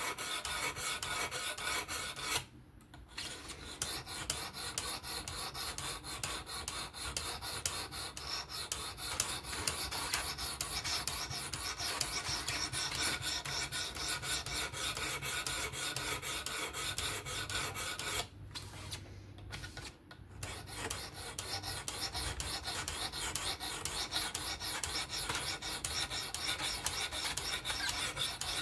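Steel knife edge being stroked across a coarse 240-grit stone on a fixed-angle sharpener, a continuous rasping scrape. It breaks off briefly about two and a half seconds in and again about eighteen to twenty seconds in.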